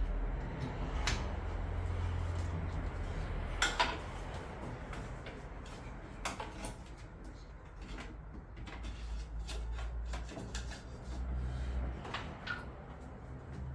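Scattered clicks and knocks of parts and tools being handled while a boiler is worked on, over a low rumble.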